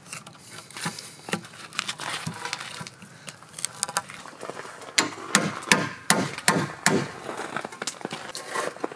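Steel wood chisel cutting a notch in a log, crackling and splitting wood fibres as it is pushed through. From about five seconds in, a hammer strikes the chisel in a steady run of sharp knocks, two to three a second.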